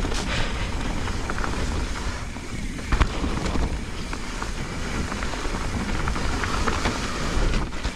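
Mountain bike riding down a wet, muddy trail: steady rush of wind on the microphone mixed with the rolling of the tyres, with scattered knocks from the bike over rough ground and one sharp, loud knock about three seconds in.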